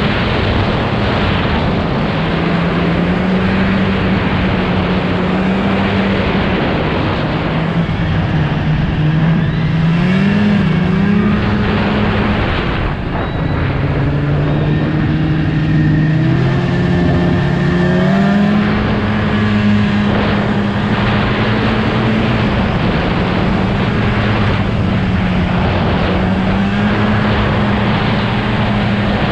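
Snowmobile engine running steadily under way on the trail, its pitch easing off and climbing back a few times as the throttle changes, mostly around the middle.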